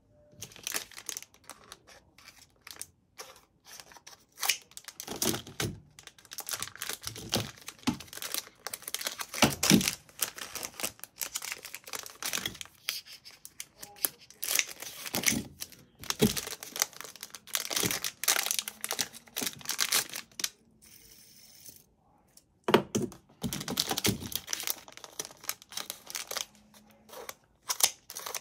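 Clear plastic packaging bags crinkling and rustling in irregular bursts as bagged fidget spinners are picked up and handled, with a quieter pause about three-quarters of the way through.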